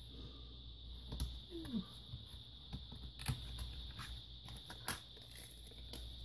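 Scattered light clicks and taps of a laptop's plastic parts and panels being handled and pulled out, over a faint steady high whine.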